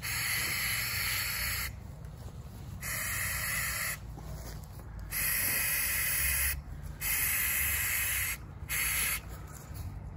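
Aerosol can of Flex Seal black rubberized coating, fitted with a trigger grip, spraying in about five bursts of hissing a second or so long, the last one short, with short pauses between.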